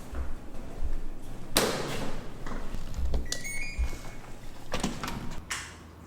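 Several knocks and scrapes of things being handled, the loudest about one and a half seconds in.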